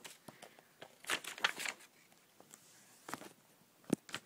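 Handling sounds of a picture book being moved about and opened: scattered rustles and clicks of pages and cover, with a sharp knock near the end.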